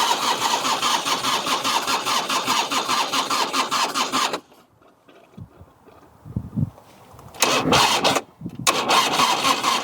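Harley-Davidson Electra Glide V-twin being cranked over on its electric starter with the choke on: one long crank of about four seconds, a pause, then two shorter cranks. The engine turns over but never fires; its carburettor is leaking fuel from the float.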